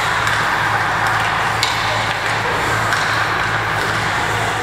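Ice rink ambience during a junior ice hockey game: a steady wash of hall noise over a low hum, with a few sharp clicks of sticks and puck on the ice, the clearest about a second and a half in.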